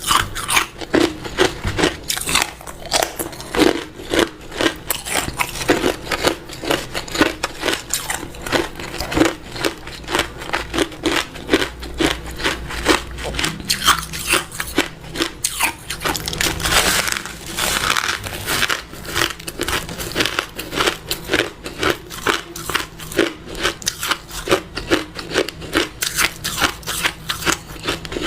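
A person chewing hard ice cubes, a steady run of loud crunches, a few a second.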